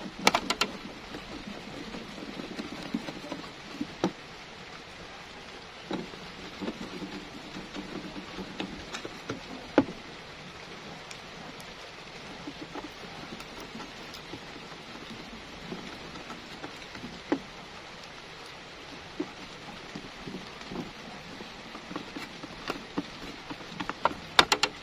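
Hand screwdriver turning the screws of a Bluetooth speaker's control panel: scattered light clicks, a sharper one near the start and another about ten seconds in, over a steady hiss.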